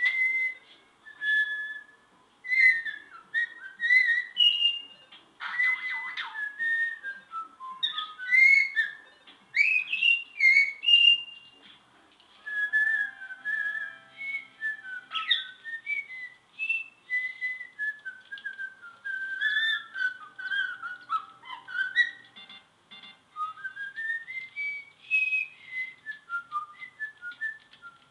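Princess parrot whistling a song it is learning: a long string of gliding whistled notes, with a short harsh chatter about six seconds in and runs of notes stepping down, then up and down again, in the second half.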